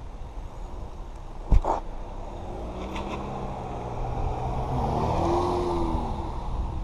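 Low rumble of a BMX bike rolling on wet asphalt, with one sharp knock about a second and a half in. From about halfway a motor vehicle's engine grows louder and passes, its pitch bending.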